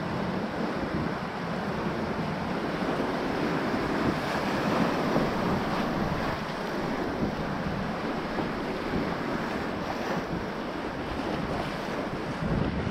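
Whitewater rushing around an open canoe running a rapid, with waves splashing over the bow, loudest about four to six seconds in. Wind buffets the helmet-mounted microphone.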